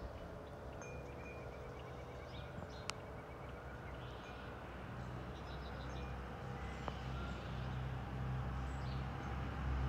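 Low, distant rumble of a Boeing 777-200 jetliner at cruising altitude, growing slowly louder as it approaches overhead. Small birds chirp over it early on, and there is a sharp click about three seconds in.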